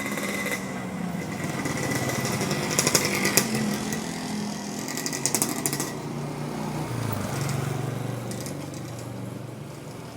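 Tape being pulled off the roll in two rasping, crackling pulls, about three seconds in and again about five seconds in. Under them an engine runs steadily, its pitch dropping about seven seconds in.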